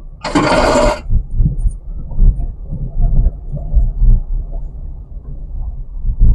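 Maruti Celerio hatchback driven over a stony dry riverbed, heard from inside the cabin: a low rumble from the tyres and suspension, with irregular knocks and jolts as the car bounces over rocks. A loud scrape lasts about a second near the start.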